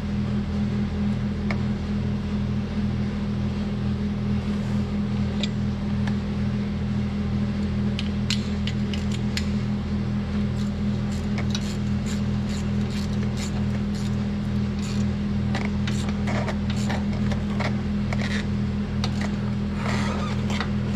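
A steady low machine hum runs throughout. From about eight seconds in, a socket ratchet clicks in short irregular runs as the bolt of the hydraulic line's hold-down bracket is turned.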